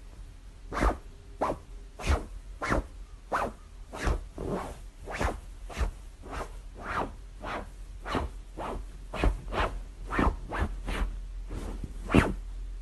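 Regular scuffing footsteps on a hardwood floor, a short scratchy swish about every 0.6 seconds.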